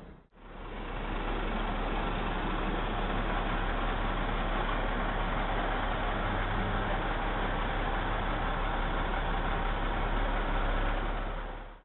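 Steady vehicle engine running, with a low hum under an even noise. It fades in after a sudden cut and fades out near the end.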